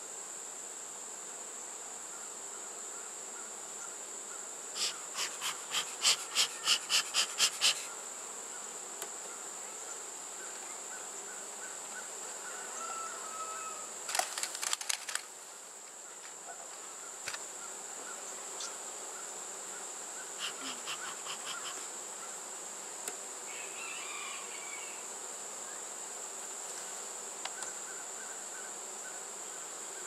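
A steady, high-pitched insect chorus. Three bursts of rapid clicking, about four clicks a second, sound over it. The longest and loudest burst comes about five seconds in and lasts about three seconds.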